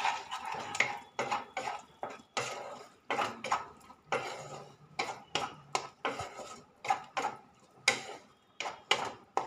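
Metal spatula scraping and stirring a thick ridge gourd and poppy-seed paste mixture around a kadai, in quick repeated strokes of about two a second.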